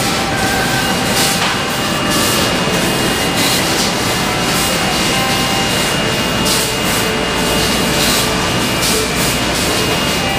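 Industrial laundry sheet feeder and ironing line running: a loud, steady machine noise with a constant high whine and brief hisses coming and going.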